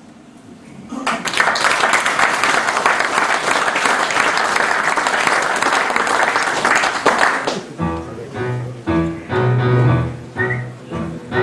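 Audience applauding for about six seconds as a male voice choir's song ends. Near the end the choir begins singing again.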